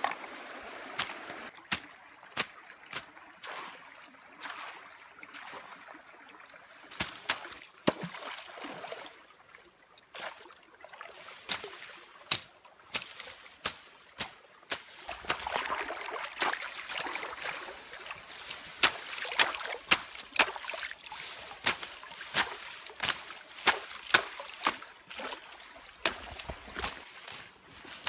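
Water splashing and trickling, with many sharp, irregular knocks and clicks that grow much more frequent after a few seconds.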